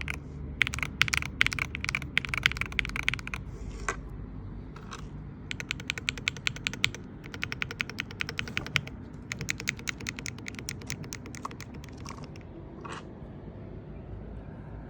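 IQUNIX EZ63 mechanical keyboard with Gateron Jade Pro switches being typed on: fast runs of keystrokes broken by short pauses, with a few single key strikes in between.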